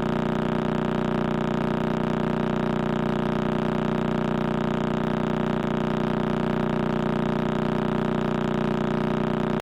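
Steady electronic drone of many held tones layered together, unchanging throughout and cutting off abruptly at the end. It is a space-sound clip, an audio rendering of signals from space.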